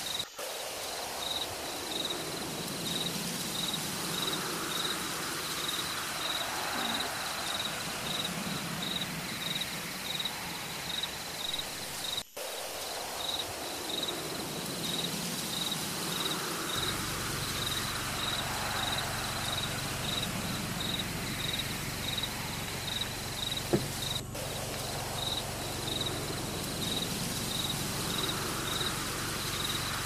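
Insect chirping in an even pulse, about one and a half chirps a second, over a steady hissing background. A single short knock comes about three-quarters of the way through.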